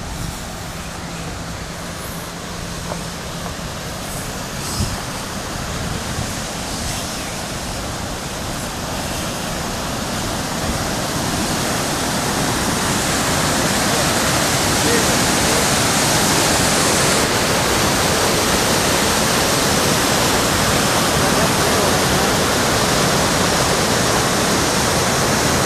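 Muddy floodwater rushing through a flooded creek channel and pouring out of a concrete culvert. The rushing grows steadily louder over the first half and then holds steady.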